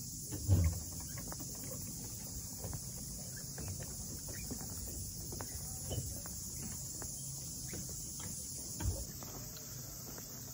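Footsteps on the wooden plank deck of a hanging footbridge, with many small knocks and creaks and a heavier thump about half a second in and again near the end.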